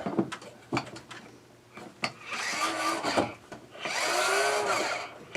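Fantastic Fan roof vent's lid-lift motor whirring in two short runs of about a second each, raising the vent lid a little, after a few clicks from handling.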